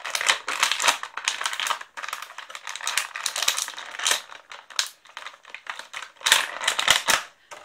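Clear plastic packaging crinkling and crackling as an action figure is worked out of it by hand, in irregular bursts of quick crackles with short pauses.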